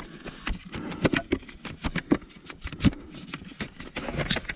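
Irregular knocks and rattles, several a second, from a Kawasaki KLR650 dual-sport motorcycle jolting along a rough dirt road.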